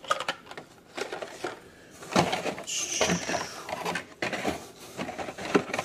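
Carded Hot Wheels cars in cardboard-and-plastic blister packs being handled and set down, making an irregular run of crackles and knocks.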